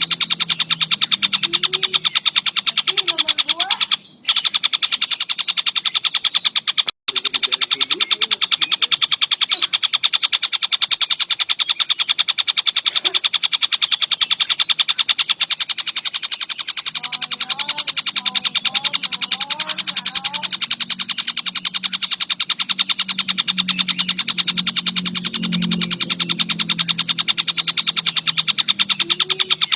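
Tengkek buto kingfisher calling continuously in a fast, unbroken high rattling trill. It cuts out briefly twice, about four and seven seconds in. Fainter, lower chirps can be heard beneath it.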